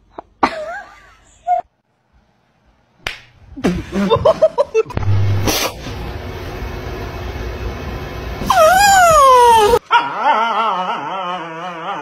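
Dogs whining and yipping in short pitched calls, with a sudden thump about halfway through. Near the end a long call slides down in pitch, then wavering, howl-like calls follow.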